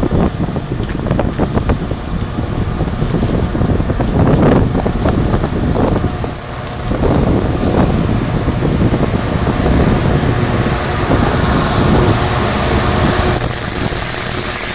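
Freightliner Class 66 diesel locomotives, with EMD two-stroke V12 engines, working hard on a heavy freight train, the engine rumble growing louder as the train approaches. A steady high-pitched squeal comes in about four seconds in, fades, then returns louder near the end as the train draws close.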